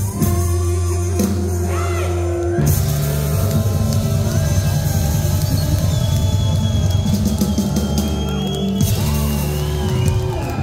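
Live rock band playing loudly, with electric guitars, saxophones and drums.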